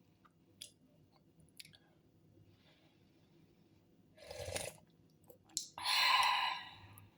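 A person eating soup: a few light clicks, then two noisy slurps, the second louder and lasting about a second.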